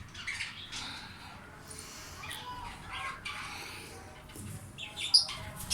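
A flock of caged budgerigars chirping and chattering in many short, overlapping high calls, with one sharp, louder call about five seconds in.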